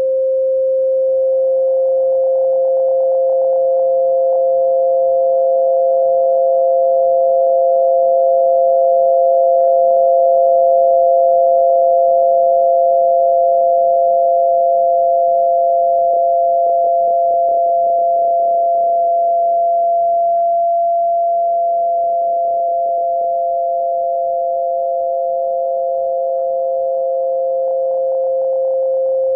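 Two steady pure tones played as a tinnitus masking sound: a lower, louder tone throughout, joined about a second in by a second, slightly higher tone, over a faint hiss.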